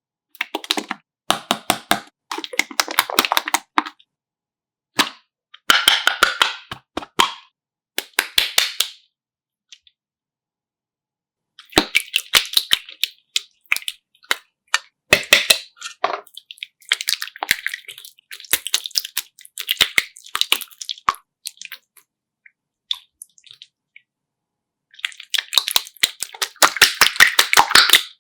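Slime being squeezed and kneaded by hand: bursts of sharp crackling pops and clicks, broken by several silent pauses.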